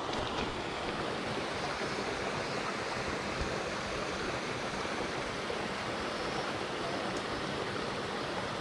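Narrow mountain stream, running low, flowing steadily over rocks and a small cascade: an even rush of water.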